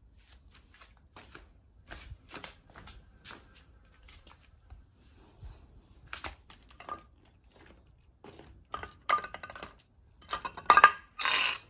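Scattered clicks, taps and light clatter of parts being handled around a nitro RC truck whose engine is not running. A louder cluster of knocks and a short rasping burst come near the end.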